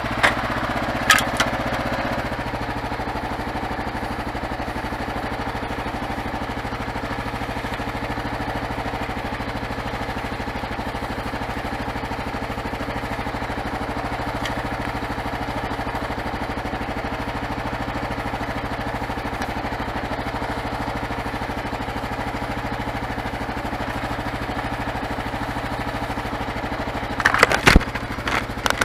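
Kawasaki KLR650's single-cylinder four-stroke engine idling steadily at a standstill, its pitch unchanging. A few sharp clicks sound about a second in, and a cluster of knocks comes near the end.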